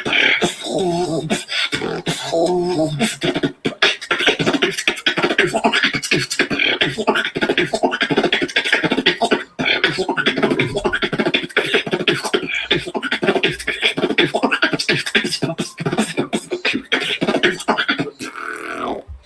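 Beatboxing: a continuous, fast run of sharp percussive mouth sounds, with a few wavering pitched vocal tones in the first three seconds.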